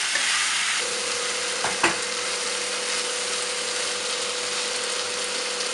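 Spiced mutton pieces sizzling in hot oil in a pan as they are stirred and browned, with a couple of sharp knocks of the spoon against the pan about two seconds in. A faint steady hum comes in about a second in.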